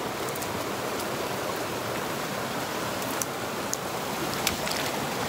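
Rain-swollen mountain stream rushing over rocks in a steady rush of water, with a few light clicks about three to four and a half seconds in.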